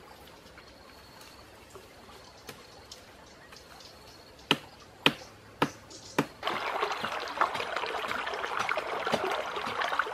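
Four sharp cracks about half a second apart, then, from about six and a half seconds in, a shallow stream trickling and babbling over stones.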